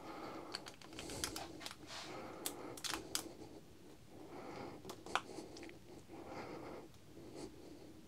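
Light clicks and rustling from hands handling a red-and-black wire and small plastic parts on a work mat. The clicks bunch up in the first three seconds, with a few single sharper ones later.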